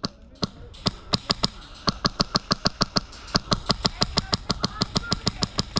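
Airsoft gun firing a rapid string of sharp, snappy shots, about seven a second.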